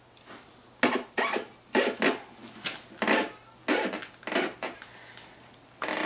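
Rubber motorcycle tire bead being worked over the rim with a manual tire changer's mount bar: a series of short rubbing, rasping strokes, about eight over four seconds, that stop near the end. The tire is stiff and cold and not yet down in the bead.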